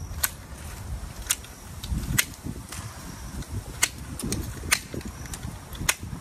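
Hand pruning secateurs snipping through thin leafy stems of a wild plum rootstock, about six sharp snips roughly a second apart, with leaves rustling between cuts. The surplus shoots are being trimmed off so the rootstock's energy goes into the graft.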